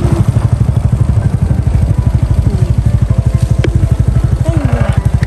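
A small engine running steadily, with a fast, even beat.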